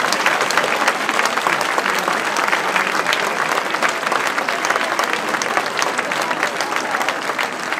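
Large crowd applauding: dense, steady clapping that slowly fades.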